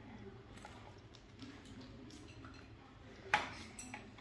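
Chopsticks clicking against a ceramic rice bowl: faint taps, then a sharper clink a little over three seconds in and a smaller one just after.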